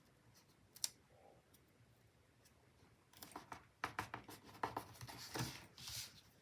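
Paper and stickers being handled on a planner page: a few faint clicks, then about three seconds of light scratching and rubbing from about halfway in.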